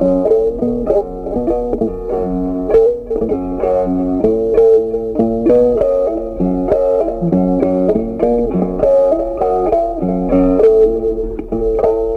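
Instrumental background music: a plucked guitar melody over a bass line.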